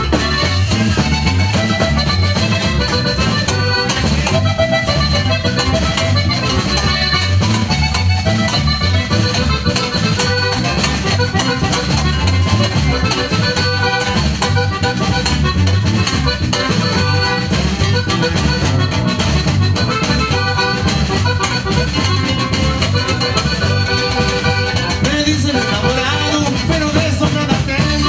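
Live norteño band playing instrumental dance music: accordion melody over bass and guitar, with a steady pulsing beat.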